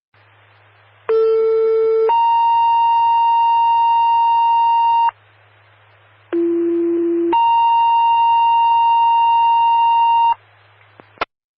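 Two-tone sequential paging tones over a fire dispatch radio: a short low tone of about a second steps up to a longer, higher tone of about three seconds, and then the sequence repeats with a different low tone. These are alert tones that set off fire company pagers before a dispatch. Radio hiss fills the gaps, and a squelch click sounds near the end.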